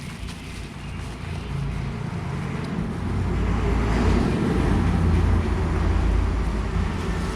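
A low, rough rumbling noise that grows louder about three seconds in and holds.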